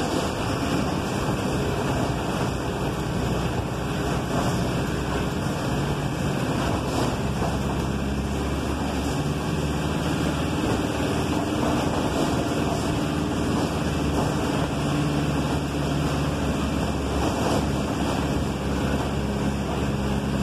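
City bus driving, heard from inside near the driver: its engine running with a low note that rises and falls a few times, over a steady rush of road and cabin noise.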